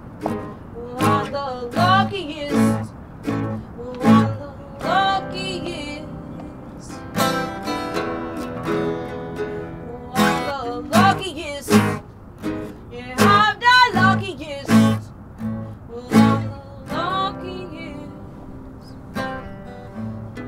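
A band playing an instrumental passage of a song: acoustic guitar strummed in sustained chords, punctuated by sharp rhythmic hits.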